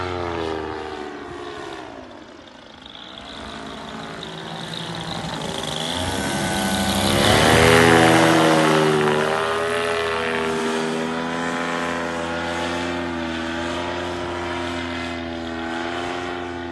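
Paramotor engine and propeller droning as the powered paraglider flies low overhead, growing louder to a peak about halfway through, its pitch sinking as it passes, then easing off.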